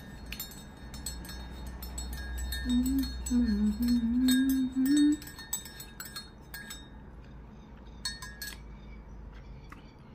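A metal spoon clinking rapidly against the inside of a ceramic mug while stirring coffee, with a few last clinks about eight seconds in. A person hums briefly, with her mouth closed, a couple of seconds into the stirring.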